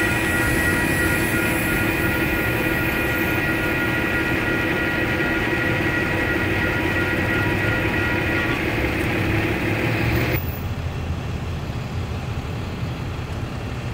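Two WCH Gen 2 Type 1.5 electronic crossing bells ringing steadily over the low rumble of a freight train clearing the crossing. Part of the ringing stops about eight and a half seconds in, and the rest cuts off suddenly about two seconds later, leaving low traffic noise.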